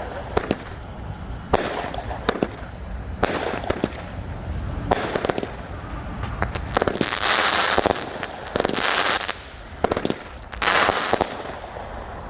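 200-gram Squilly fireworks cake firing, a sharp report about every second and a half, with two longer dense bursts of noise in the second half.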